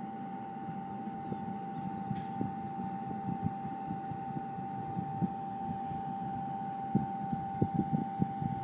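Fertilizer mixing machine running: a steady hum over a low rumble, with irregular knocks that come thicker in the last couple of seconds.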